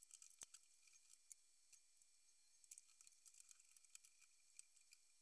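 Near silence with a few faint, scattered clicks and taps: carbon fibre rods being handled and fitted into 3D-printed plastic sliders.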